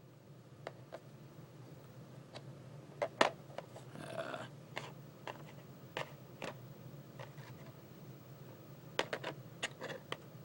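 Kre-o plastic building-toy pieces being handled and fitted together: scattered light clicks and taps, with a brief rustle about four seconds in and a quick cluster of clicks near the end.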